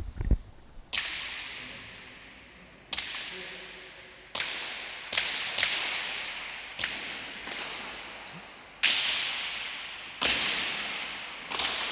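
Hand-pelota balls being struck and smacking off the frontón walls while the players try out balls to choose a new one. About a dozen sharp cracks come at uneven intervals, each trailing a long echo in the empty court.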